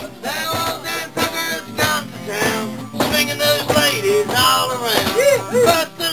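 Acoustic guitar strummed with a man singing along, his voice sliding up and down in pitch.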